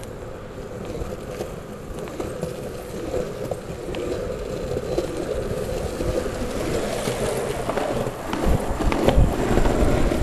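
Wheels rolling on street pavement: a steady rumble that grows slowly louder as the camera moves along, with a few knocks and thumps near the end.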